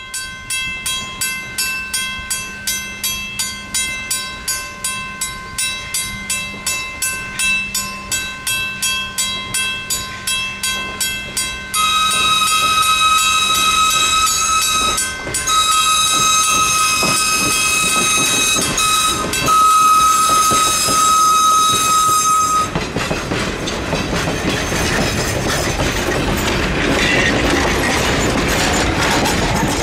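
Grade crossing bell ringing about two and a half strokes a second. About 12 seconds in, the steam whistle of Valley Railroad #40, a 1920 ALCO steam locomotive, blows for the crossing in long blasts with two brief breaks. When the whistle stops, the passing train's running noise and rail clatter take over.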